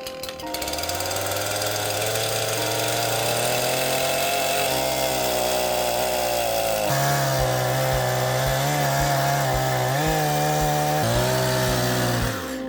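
A chainsaw running and cutting wood, its pitch rising and falling with throttle and load, over background music that picks up a steady beat about halfway through.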